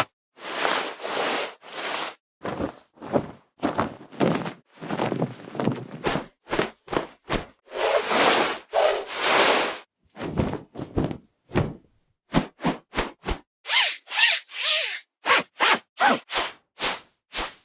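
A sequence of fabric whooshes: cloth swished through the air in one pass after another, some quick and short, some longer swells, with brief gaps between. About twelve seconds in comes a run of quick short swishes, then a higher, fluttering whoosh, then more short swishes.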